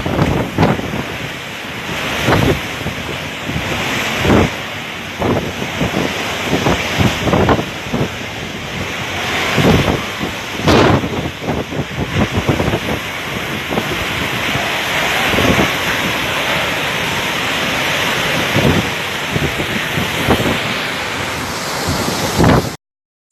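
Hurricane-force wind and driving rain, gusting hard against the microphone in repeated sudden surges over a constant roar. The sound drops out abruptly just before the end.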